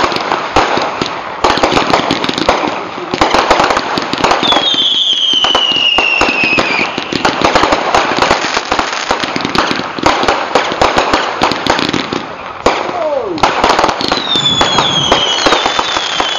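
Fireworks display: dense, continuous crackling and popping of aerial bursts. High whistles that fall in pitch sound about five seconds in and again near the end.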